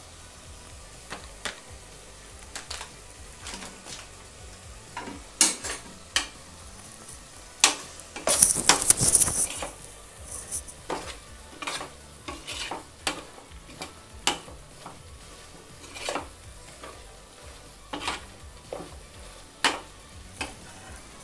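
Slotted metal spoon stirring spice powders into a sizzling onion-tomato masala in a metal pot, with irregular clinks and scrapes against the pot. A longer, louder stretch of scraping comes about eight to nine and a half seconds in.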